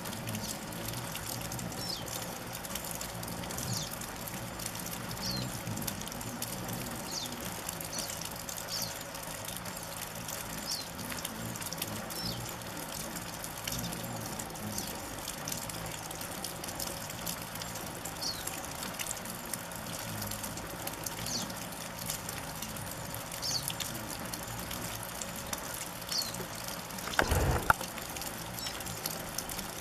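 A flock of rufous hummingbirds at a feeder: a steady whir of many wings, with short high chip calls every second or two. A brief louder burst comes near the end.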